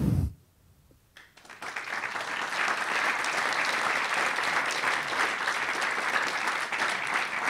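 Audience applauding at the end of a talk, starting after a short pause about a second and a half in and holding steady.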